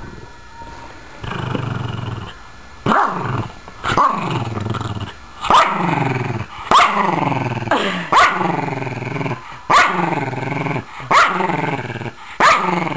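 Yorkshire terrier growling over its ball, resource guarding: a low steady growl about a second in, then about eight sharp growl-barks, each dropping away into a growl, roughly one every second and a half.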